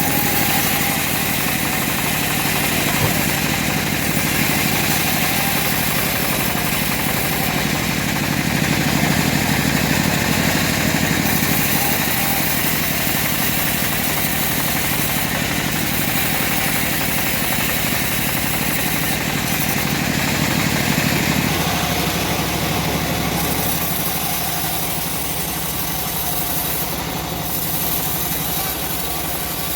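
Homemade bandsaw mill running steadily with its engine under way; the low part of the sound drops about two-thirds of the way through.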